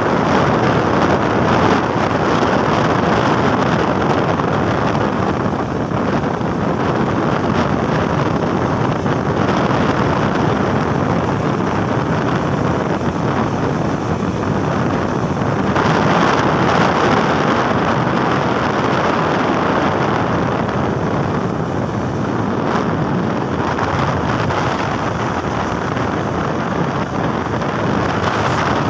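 Steady, loud wind rushing over the microphone while riding along a road, mixed with the rumble of the moving vehicle.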